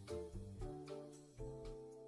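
Quiet instrumental backing music fading out at the end of a song: sustained chords with a few soft notes struck over them, growing fainter.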